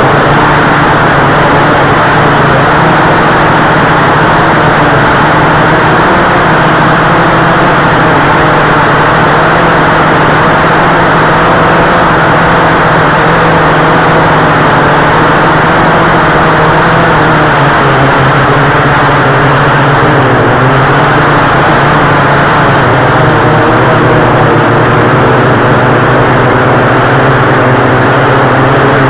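Blade 350QX2 quadcopter's four electric motors and propellers running in flight, heard close up from a camera mounted on the airframe: a steady hum with a rushing hiss, its pitch shifting slightly as the motor speeds change.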